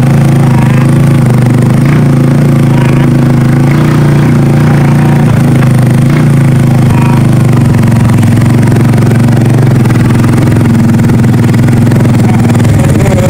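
Motorcycle engine running steadily while being ridden, heard up close from on the bike, its pitch shifting slightly with the throttle.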